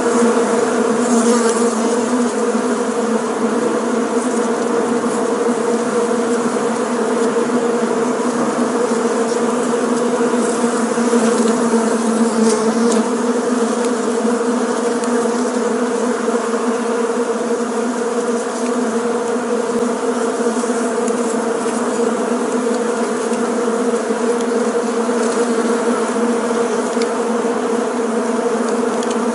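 Many bees buzzing together in a steady, unbroken drone.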